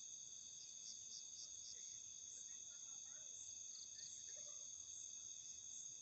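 Faint night chorus of crickets and other insects trilling steadily at several high pitches, with short chirps pulsing on top.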